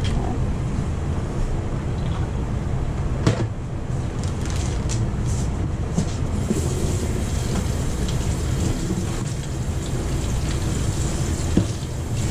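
A steady low rumble of background machine noise, with plastic bag handling and a few sharp knocks. About six seconds in, the kitchen tap is turned on and water runs into a steel sink as hands are rinsed.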